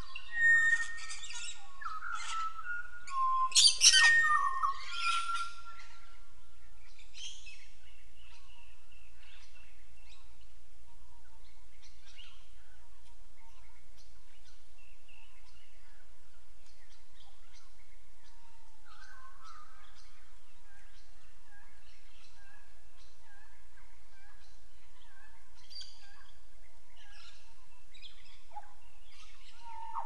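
Pied butcherbirds singing a duet: clear, fluting whistled notes, loudest in the first few seconds and again in softer phrases from about two-thirds of the way in, with fainter short chirps in between.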